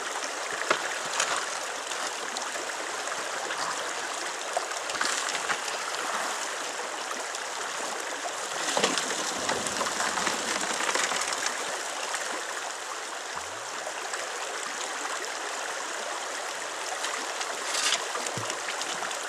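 Shallow river running over rocks: a steady hiss and gurgle of flowing water, with a few faint clicks here and there.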